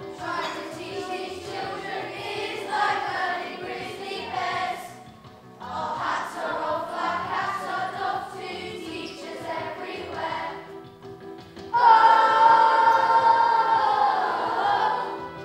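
Children's choir singing in unison, in phrases with short breaks, ending on a long, loud held note.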